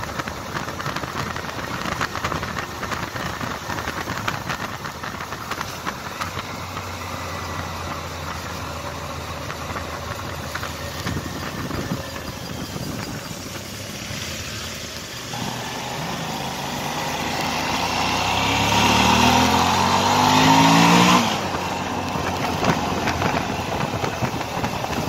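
Suzuki V-Strom DL650's V-twin engine running under a steady rush of wind and road noise while riding. About two-thirds of the way in, the engine climbs in pitch and grows louder as it accelerates, then drops off suddenly.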